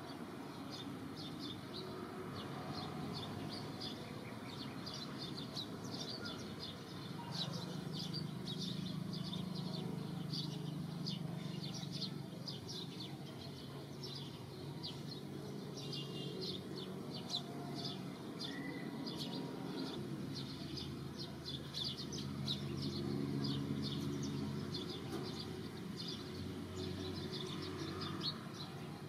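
Small birds chirping, many short high chirps every second, over a low steady drone that swells twice.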